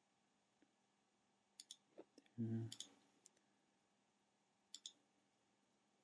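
Computer mouse button clicks: a quick pair about one and a half seconds in, a few single clicks between two and three and a half seconds, and another quick pair near five seconds. Among them, about two and a half seconds in, comes a short low hum, the loudest sound. Otherwise near silence.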